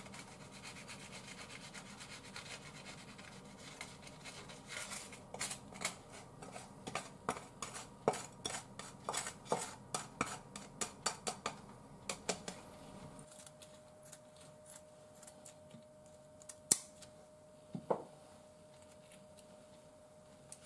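A black turner scraping the inside of a T-fal frying pan in quick repeated strokes, about three a second, clearing the last of the cabbage-yaki onto a plate. After that a faint steady hum and a couple of light knocks.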